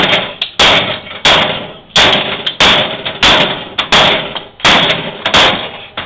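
Sledgehammer smashing a microwave oven: about nine heavy blows in a steady rhythm, roughly one every two-thirds of a second, each with a short ringing rattle after it.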